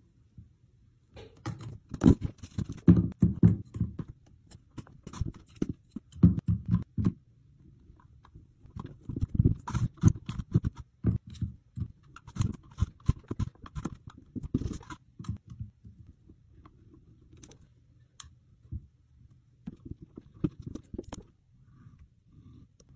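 A glass bottle tamping coloured sand down into a clear plastic mug: bursts of quick, soft knocks and thuds with short pauses between them.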